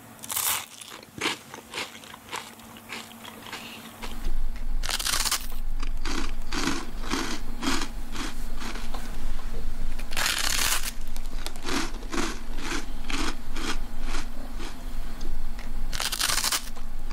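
Crisp toasted bread being bitten and chewed with loud crunches. A sharp bite comes near the start, fresh bites follow at about five, ten and sixteen seconds in, and steady chewing about twice a second runs between them. A low steady hum sets in about four seconds in.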